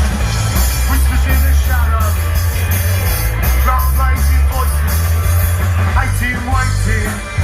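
A live rock band playing loud through a festival PA: heavy bass and drums with a singer's voice over them.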